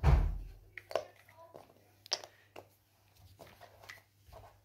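Cardboard jigsaw puzzle pieces handled and tapped down on a hard floor: a few sharp clicks and small ticks, after a dull thump at the start.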